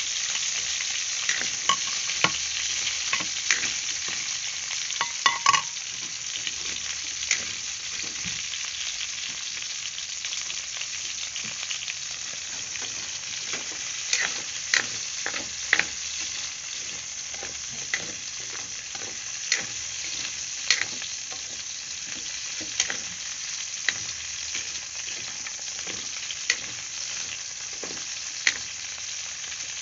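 Chicken, garlic and freshly added onion frying in oil in a pan, a steady sizzle. Irregular sharp clicks and scrapes of a utensil against the pan as it is stirred.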